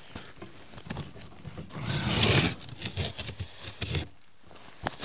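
Rocks being picked up and carried by hand for a fire ring: irregular scraping and rustling with a few sharp knocks of stone on stone, loudest about two seconds in.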